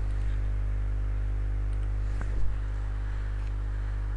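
Steady low electrical mains hum with a stack of overtones, picked up by the recording chain, with one faint click about two seconds in.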